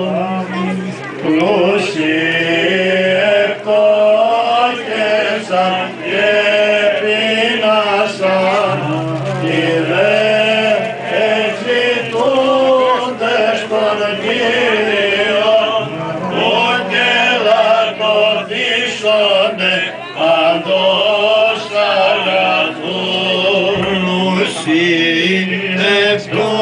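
Byzantine chant sung by male voices: a slow, ornamented melody over a low held drone note (the ison) that changes pitch a few times.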